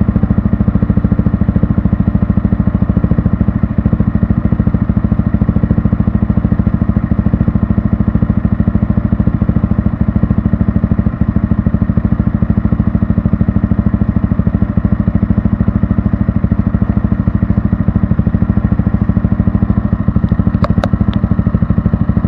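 Yamaha R15 v3's single-cylinder engine running steadily without revving through an aftermarket Kalkal exhaust, with a rapid, even exhaust pulse.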